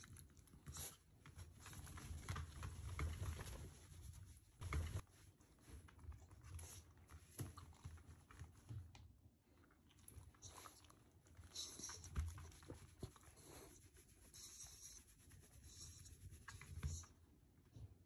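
Faint, irregular rustling and rubbing of a hand stroking a Shiba Inu's head fur, with soft bumps now and then.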